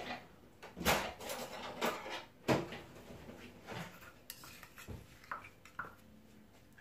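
Metal spoons clinking and scraping against a small verrine glass and a steel mixing bowl as a creamy filling is spooned into the glass. There is a run of sharp clinks, the loudest about one second and two and a half seconds in, then lighter taps.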